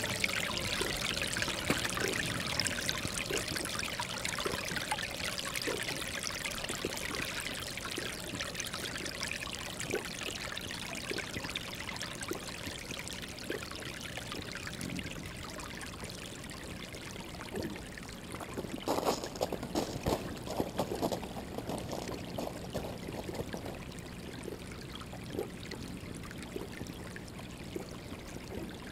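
Water sloshing and trickling in a drinking trough as desert bighorn sheep drink at it, with scattered small splashes and laps. A short flurry of them comes about two-thirds of the way through.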